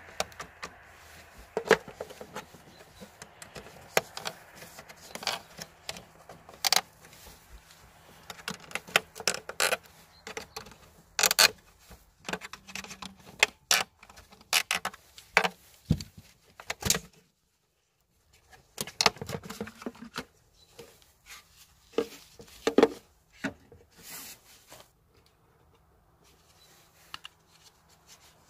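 Irregular plastic clicks, snaps and knocks as gloved hands and a screwdriver work the clips of a removed BMW F31 tail light housing and its bulb carrier. There is a break of about a second in the middle.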